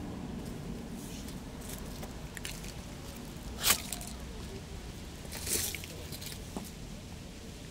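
Cat chewing dry kibble: a few scattered crisp crunches, the loudest about three and a half seconds in, over a low steady background rumble.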